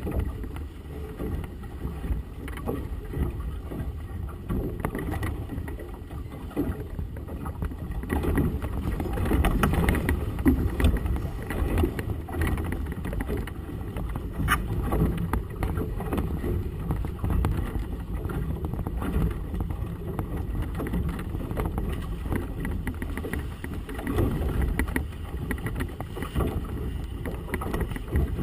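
Gusty wind rumbling on the camera microphone, with water splashing and rushing against the boat's hull on choppy water.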